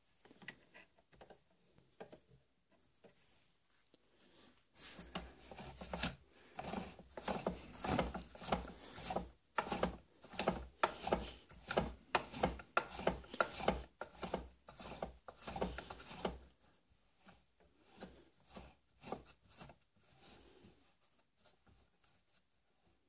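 Setting up a homemade drill-powered mini lathe: a run of ratcheting clicks and scraping as the workpiece is fitted between the drill chuck and the wooden tailstock, loudest from about five to sixteen seconds in. The drill motor is not running.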